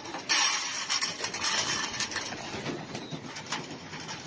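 Dried corn kernels poured out with a rattling rush that starts about a third of a second in and lasts about a second. Then comes a rapid scatter of clicks as pigeons peck at the corn, with pigeons cooing.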